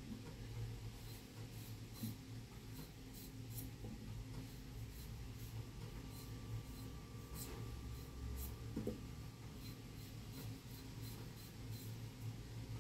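Faint, irregular scratching and rubbing as hands work at a kitchen counter, over a steady low hum from the gas burner under a lidded steamer wok.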